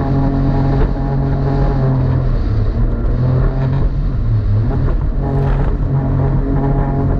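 Jet ski engine running steadily at speed, its pitch wavering and dipping briefly a little past the middle, with rushing water and wind noise underneath.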